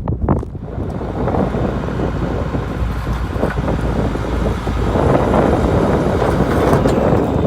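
1996 International 4900 bucket truck running, a steady low rumble that grows louder about five seconds in.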